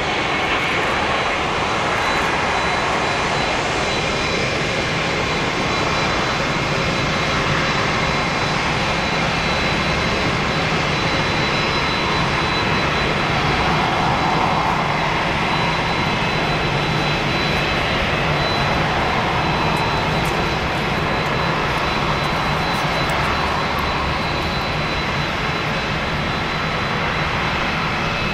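Jet engines of a Boeing 767-300ER landing and rolling out: a steady, distant rushing roar with a thin high whine, swelling slightly about halfway through around touchdown.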